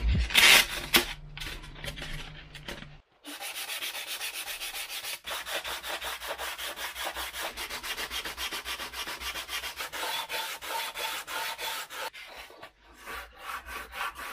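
Sanding block rubbed back and forth over the edges of a Depron foam fuselage in quick, even strokes, about four or five a second, starting about three seconds in and thinning out near the end. The sanding smooths the glued foam layers.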